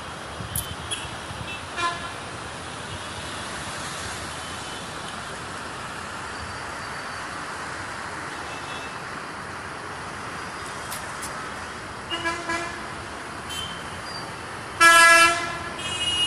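City street traffic below, a steady hum, with car horns honking now and then: a few short toots, and the loudest honk near the end.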